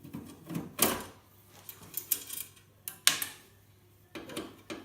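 Sheet-metal parts of an old PC tower clanking and rattling as the drive bay is worked on to free the floppy drive: a string of sharp knocks and clicks, the loudest just under a second in and another about three seconds in.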